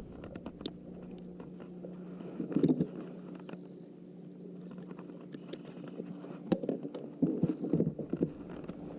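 Knocks, clicks and rustling from a smallmouth bass being handled and unhooked on a kayak, loudest about two and a half seconds in and again near the end, over a steady low hum.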